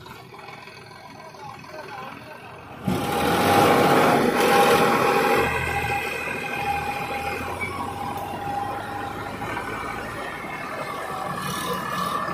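Diesel engines of a farm tractor and a JCB backhoe loader working hard as the tractor is pushed out of the mud, getting suddenly much louder about three seconds in. A steady whine runs through the engine noise.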